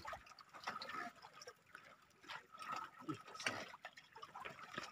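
Faint water sounds: soft, irregular lapping and dripping of reservoir water around a wooden fishing raft.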